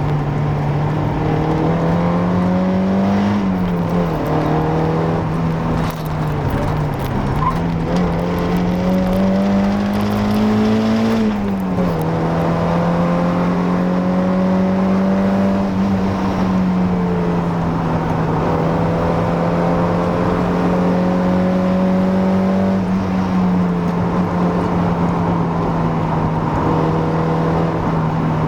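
Mazda MX-5 Miata NA's stock 1.6-litre four-cylinder engine running under way through a near-stock exhaust. The note climbs slowly and drops back about five times as the revs rise and fall, holding steady between.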